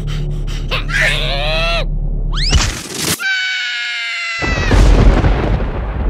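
Cartoon soundtrack of a larva creature in a typhoon: a low steady rumble with a short falling squeal, then a long high-pitched scream, and from about two-thirds of the way in a loud rush of storm wind.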